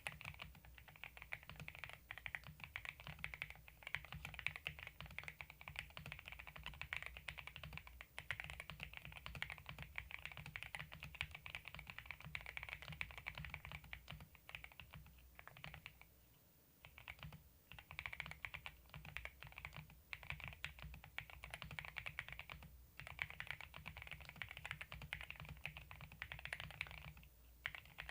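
Steady typing on a Zuoya GMK87 gasket-mount TKL mechanical keyboard with factory-lubed GGBOY Matcha Green linear switches and PBT keycaps: a quick run of light key clacks, pausing briefly about sixteen seconds in and again near the end.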